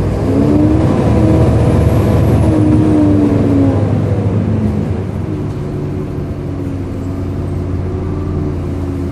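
Volvo B7LA articulated bus running, its engine note rising and falling in the first few seconds, then settling steadier and a little quieter from about halfway, over a continuous whir from its cooling fan, a loud 'hoover' sound.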